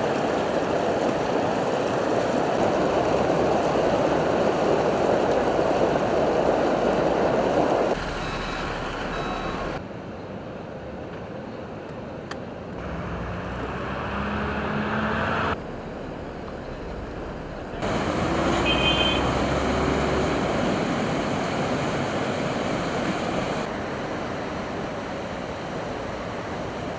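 Muddy floodwater rushing steadily down a concrete stream channel, the loudest part, ending abruptly about eight seconds in. After that come cut-up shots of heavy earth-moving machinery clearing flood mud, a CAT 950F wheel loader and a backhoe loader, their diesel engines running.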